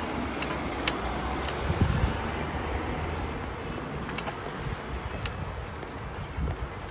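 Wind rumbling on the microphone while running outdoors, with scattered light clicks and a few soft thumps.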